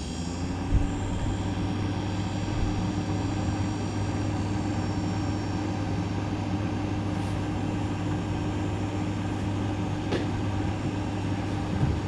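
Embraco refrigerator compressor, fitted with a new overload relay and start capacitor, starting up and then running with a steady hum. A tone rises briefly in the first second as it comes up to speed, and a single click sounds just under a second in. It is a successful start: the repair has it working.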